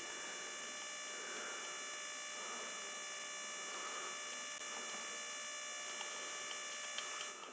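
Steady electrical hum with a faint high-pitched whine of several steady tones, dropping away near the end.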